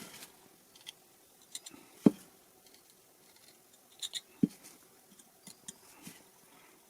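Cottonwood bark being cut by hand with a carving tool: scattered short cuts and scrapes, the sharpest about two seconds in and again a little after four seconds.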